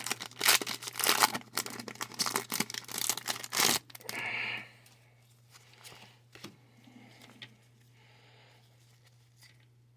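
Foil Pokémon booster pack being torn open and crinkled by hand: fast, dense crackling and ripping for about four seconds, ending in one longer rip. After that only faint handling sounds.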